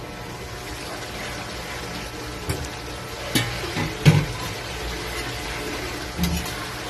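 Pork humba simmering in its soy-and-vinegar sauce in a metal pot, a steady bubbling hiss, with a few sharp metal knocks, the loudest about four seconds in, as the pot's lid is lifted off.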